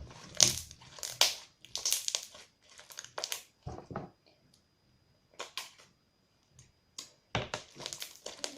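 Crunchy slime squeezed and pressed by hand, crackling in irregular bursts. The crunch comes from the hard white glow-in-the-dark pieces mixed into it. The bursts pause for about a second around the middle, then return in quicker clusters near the end.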